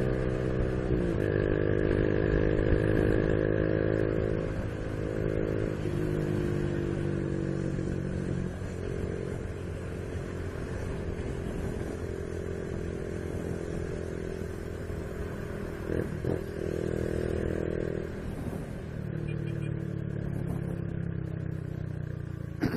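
Honda Biz 125's single-cylinder four-stroke engine running while riding, its pitch stepping down and back up several times with gear changes and throttle.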